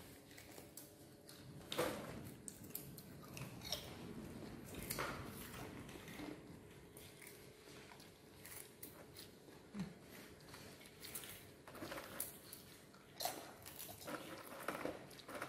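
Baby monkeys chewing and munching snacks held in their hands, faint wet chewing with scattered small clicks and crunches, the sharpest about two seconds in.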